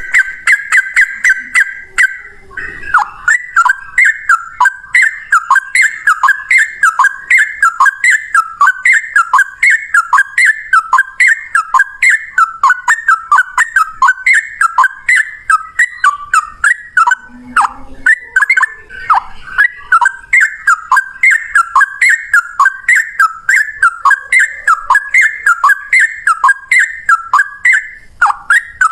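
Yellow-vented bulbul (trucukan) in long, rapid-fire song: a steady held whistle for about two seconds, then an unbroken run of short repeated notes, a few a second, each dipping in pitch.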